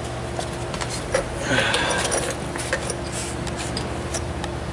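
Scattered metallic clicks and clinks of a hand wrench loosening the top caliper bolt on a 1996 Jeep Grand Cherokee's front brake, with a short clattering scrape about a second and a half in, over a steady background hum.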